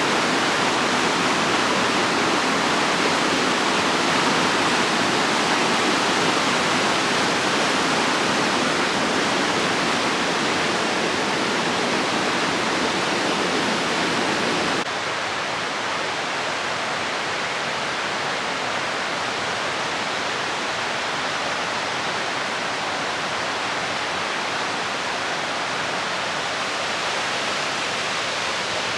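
Mountain river rushing over rocks in a gorge, a steady full rush of water. About halfway through it switches abruptly to a slightly quieter, thinner rush.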